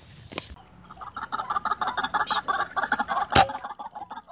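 White-breasted waterhens (ruak-ruak) calling in rapid repeated clucking notes. About three seconds in comes a single sharp air-rifle shot, the one that hits a bird.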